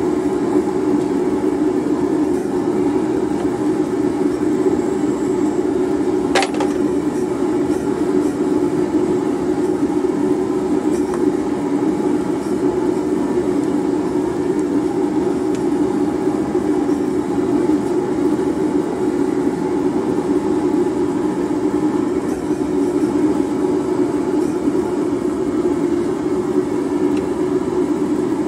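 A steady, even machine roar with no change in level, broken once by a sharp click about six and a half seconds in.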